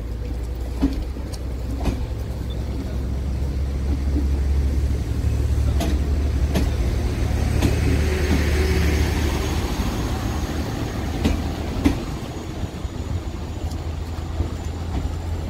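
Network Rail Windhoff multi-purpose vehicle (MPV) diesel unit pulling out and passing: a steady low engine hum that grows louder a few seconds in, then eases as it moves away, with occasional sharp clicks.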